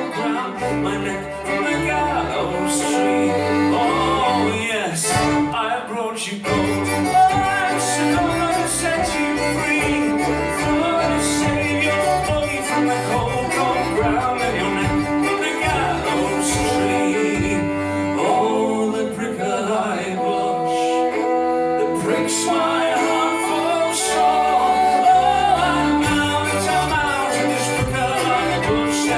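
Fiddle and melodeon playing an instrumental break of a folk ballad tune, with a steady bass-chord accompaniment under the melody.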